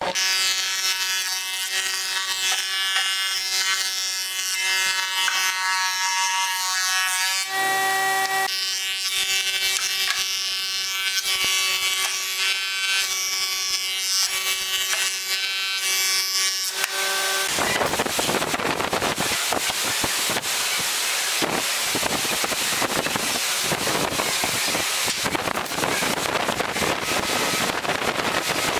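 Woodworking planer-thicknesser running with a steady, many-toned whine, which a little over halfway through gives way to a harsher, rough rushing noise.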